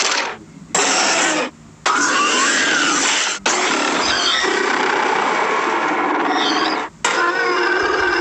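Creature sound effect for a bear-owl monster: a run of loud, harsh, rasping roars with wavering pitch, broken by short pauses about half a second, a second and a half, three and a half and seven seconds in.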